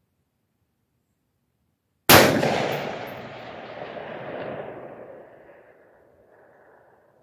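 A single AR-15 rifle shot about two seconds in, a sharp crack followed by a long rolling echo across the valley that swells once more and slowly dies away.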